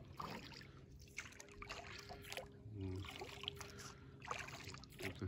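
A small boat moving slowly through calm water, with water dripping and lapping at the hull. Under it runs a faint steady hum from a distant boat motor, and a brief low call is heard about three seconds in.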